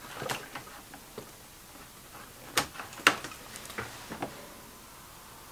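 A few sharp plastic clicks and knocks from USB cable plugs being handled and reconnected. The two loudest come about half a second apart, near the middle, with lighter ones before and after.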